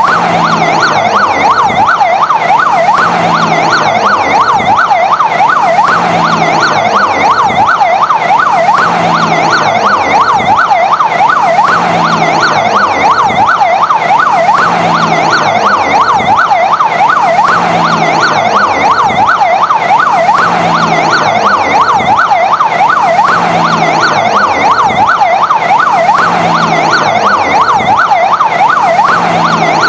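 Fire engine siren sounding continuously in a fast yelp, its pitch sweeping up and down several times a second. It is loud and steady.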